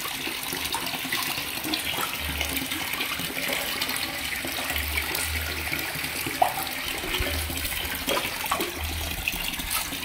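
Water running steadily into a fish pond, an even rushing noise, with a few dull low rumbles.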